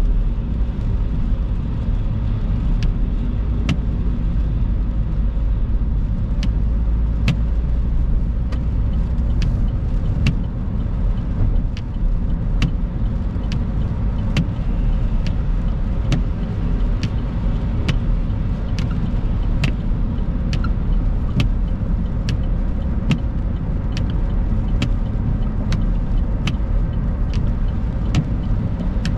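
Steady low road and engine rumble of a car driving on a wet road, heard from inside the cabin. Scattered sharp ticks of raindrops strike the windscreen, about one or two a second.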